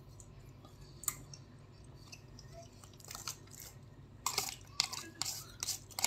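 Plastic spoon and fork scraping and tapping in an aluminium foil takeaway tray as food is broken up and scooped. There is a single click about a second in, then short clicks and scrapes that come thicker from about three seconds in.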